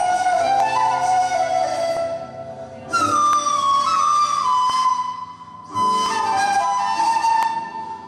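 End-blown flute playing a slow solo melody of long held notes that slide between pitches. There are two short breath pauses, about two seconds in and just past the middle, and after the first one the melody comes back on a high note that slides down.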